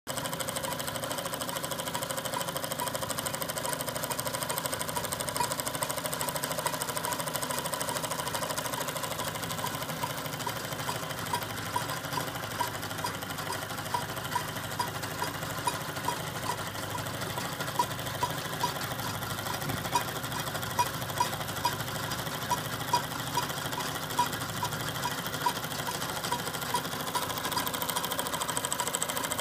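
Model steam engine with two cylinders running steadily, a fast even mechanical clatter from the engine and the belt-driven line shaft and toy models it powers. A light ringing tick repeats about once or twice a second through the middle.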